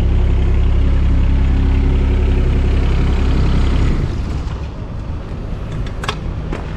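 Diesel engine idling steadily; about four seconds in its sound drops off sharply, leaving a quieter rumble. A sharp click about six seconds in.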